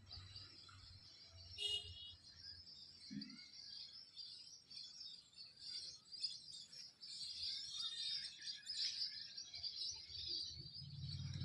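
Birds chirping and twittering, many overlapping high calls without a break, with one clearer call about two seconds in.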